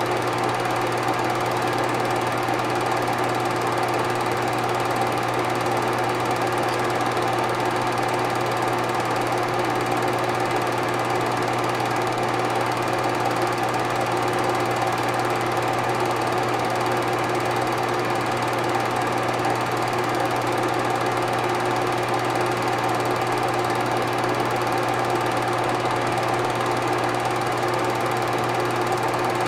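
Film projector running: a steady motor whirr and hum with constant hiss, unchanging throughout.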